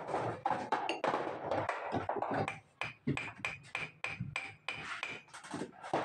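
Quick, irregular metal tapping and knocking, about four or five strikes a second, with a faint high ringing tone through the middle of it.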